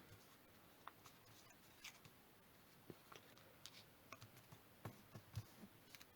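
Near silence with faint, irregular crinkles and taps of origami paper being handled as its folded ears are nudged into place.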